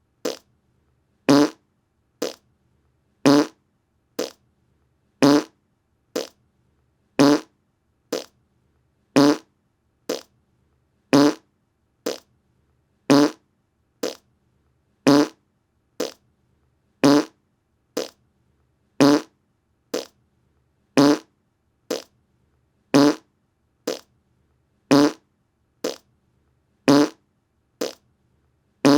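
Fart sound effect: short, brassy blasts repeated about once a second, alternating between a louder and a softer one.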